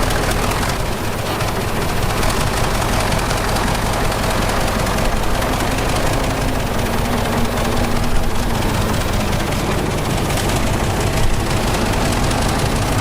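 Diesel engine of heavy earthmoving machinery running steadily with a low hum, with a couple of brief knocks about eight and eleven seconds in.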